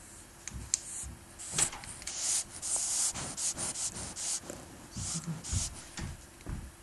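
Shiba Inu sniffing right at the microphone in quick, irregular, hissing snuffs, with a few dull bumps of its muzzle or fur against the camera.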